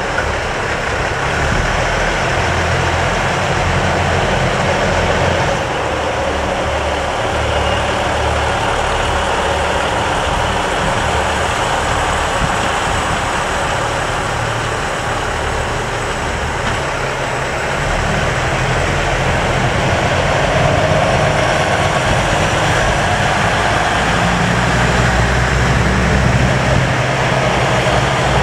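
KiHa 85 series diesel multiple unit pulling away, its carriages passing close by with the steady rumble of their underfloor Cummins diesel engines and wheel noise on the rails. It grows a little louder about two-thirds of the way through.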